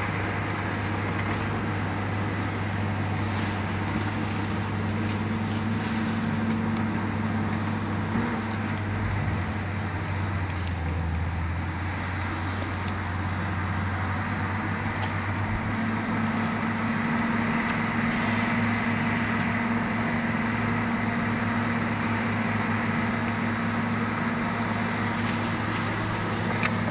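Case bulldozer engine running steadily, with a thin high tone riding over its drone. The engine note dips briefly about ten seconds in.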